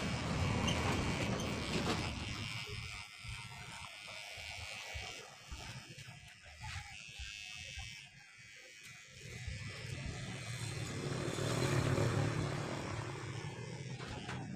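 Electric hair clippers buzzing as they cut short hair at the nape. The buzz is louder near the start and again about three quarters of the way through, and fainter in between.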